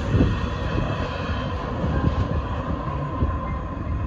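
Tail end of a Norfolk Southern double-stack intermodal freight train rolling away: wheels rumbling and clicking on the rails, with a thin steady tone above the rumble.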